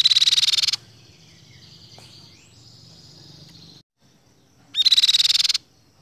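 Crescent-chested babbler (tepus pipi-perak) calling: two loud, rapid, buzzing trills, one at the start and one about five seconds in, each under a second long, with softer thin high notes between them.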